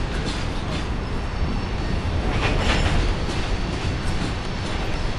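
Coal train of hopper cars rolling past on curved track: a steady rumble of steel wheels on rail, with a louder stretch of higher rail noise about halfway through.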